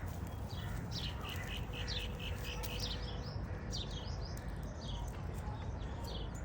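Small birds chirping: many short, quickly falling chirps, several a second, over a steady low rumble.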